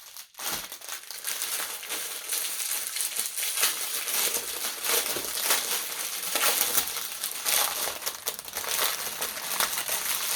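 Plastic packaging of a diamond-painting kit crinkling and rustling as it is handled, with many small clicks and crackles throughout.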